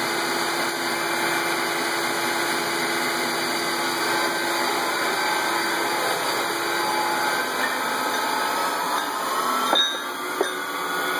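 Several metalworking machines running at once: a steady mechanical running noise with a constant tone, then two sharp clacks about ten seconds in.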